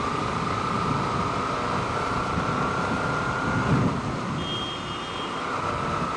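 Steady road and traffic noise while riding a motorcycle in slow traffic on a wet road: an even hiss with a thin steady whine. A short high beep sounds about four and a half seconds in.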